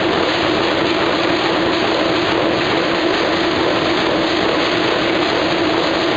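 Corrugated cardboard production line running: a loud, steady machine din with a constant low hum, from the conveyors and the sheet-cutting and stacking machinery.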